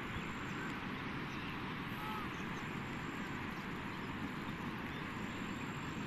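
Fast-flowing muddy floodwater rushing and churning in a swollen river, a steady, even rush of water.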